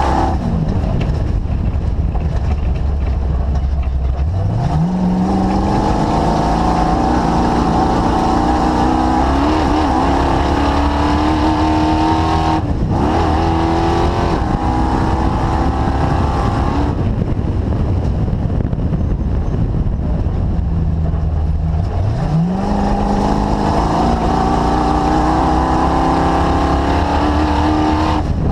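DirtKinetics Explorer's engine running on a cruising lap under a steady haze of driving noise. The revs climb sharply about four seconds in and again about two-thirds of the way through, dip briefly near the middle and ease off a few seconds later.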